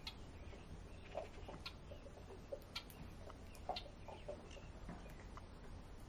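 Songbirds at feeders giving scattered short chips and clucking calls, mixed with sharp clicks, all faint.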